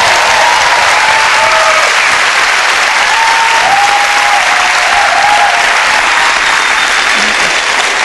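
Studio audience applauding, loud and sustained, with a few voices calling out over the clapping in the first half.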